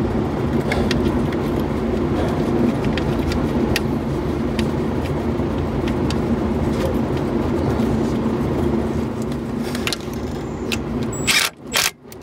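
An engine running steadily, with scattered light metallic clicks of tools being handled, and a few short rustling knocks near the end.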